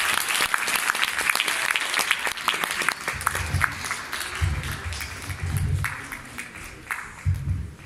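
Audience applauding, the clapping thinning out over the last few seconds, with low bass thuds coming in underneath about three seconds in.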